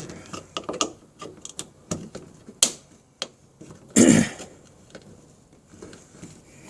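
Small tools working at a plastic window switch and its trim panel: a run of scattered light clicks, ticks and scrapes as it is pried and turned, with one louder short knock about four seconds in.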